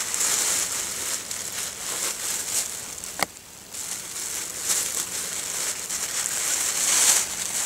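Plastic bag crinkling and rustling as a hand rummages inside it, with one sharp click a little past three seconds in and a brief lull just after.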